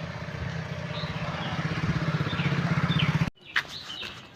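An engine running with a fast, even pulse, growing louder, with birds chirping over it; it stops abruptly about three seconds in, leaving birdsong over a quieter background.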